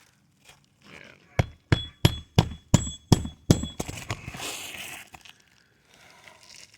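A hammer striking metal in a quick run of about seven ringing blows, roughly three a second, as work goes on on the asphalt shingles. A brief scraping rustle follows.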